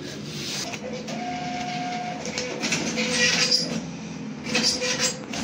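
ATM cash dispenser whirring in several mechanical runs as it counts out and pushes banknotes through the cash slot, with a steady beep lasting about a second, starting about a second in.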